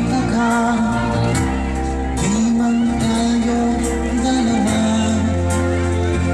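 Music with singing: a voice holding long notes over a steady bass line.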